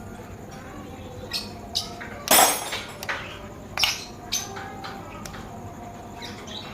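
Scattered sharp clicks and knocks, with one louder clatter about two and a half seconds in.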